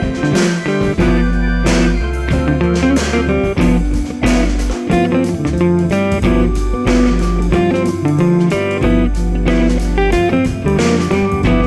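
Background music: an electric guitar playing a bluesy rock line over a bass and drum beat.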